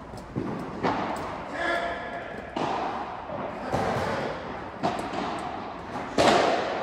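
Padel ball knocks: several sharp hits of ball on racket, floor and walls that ring on briefly in the large hall, the loudest near the end, with players' voices in between.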